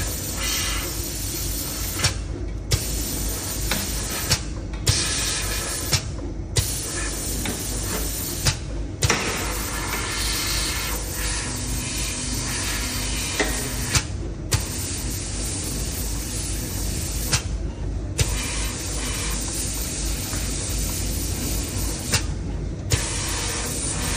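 Conformal coating machine spraying PCB coating: a hiss of spray that cuts out briefly and starts again every few seconds, with sharp clicks, over a steady low hum.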